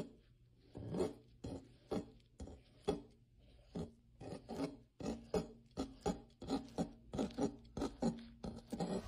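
Kitchen knife slicing an avocado on a cutting board: a run of short rasping cuts, about two a second, coming faster after about five seconds.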